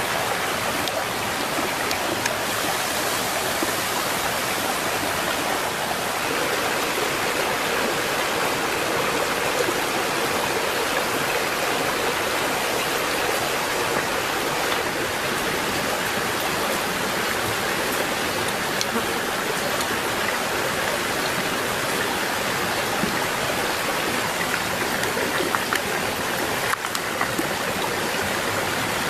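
Shallow stream running over rocks, a steady even rush of water.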